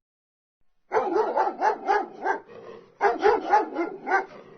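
Dog barking in two quick runs of short barks, the first starting about a second in and the second about three seconds in.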